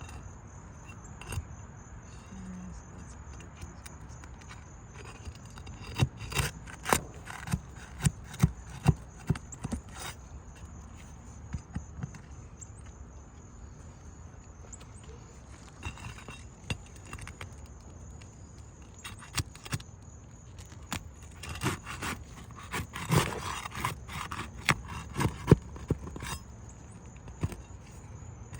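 Hammer and flat bar prying out a 3-tab asphalt shingle and its roofing nails: runs of sharp metal strikes, about eight in quick succession a quarter of the way in and another series later on, with scraping between them.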